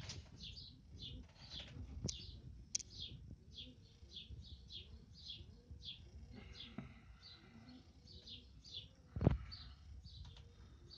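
A bird chirping over and over, short high falling chirps about two a second, with one sharp knock about nine seconds in.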